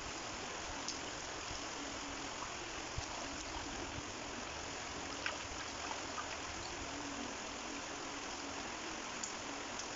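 Shallow stream flowing steadily, an even rushing of water with a few faint ticks.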